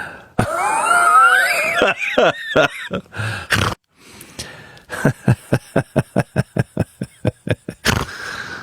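A dog stuck in a tyre whining, in high cries that rise and fall in pitch for about two seconds. After a pause comes a run of short, even pulses, about four a second, for about three seconds.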